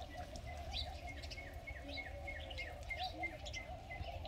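Birds chirping in the trees, a quick steady series of short high notes, about four a second.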